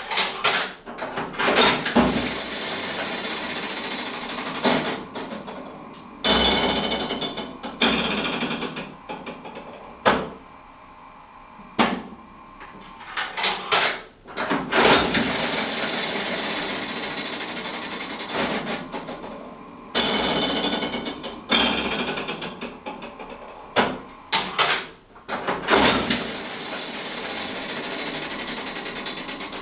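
Mechanism of a 1960 Wulff 'Regina' Beromat penny-arcade one-arm bandit working with its case open, played several times in a row. Stretches of steady mechanical rattling while the reels spin are broken by sharp clunks and clicks as the handle is worked and the reels stop.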